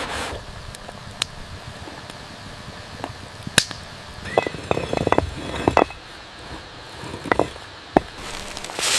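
A string of sharp, irregular knocks and clicks: a few scattered single ones, a quick cluster in the middle, the loudest about a third of the way in.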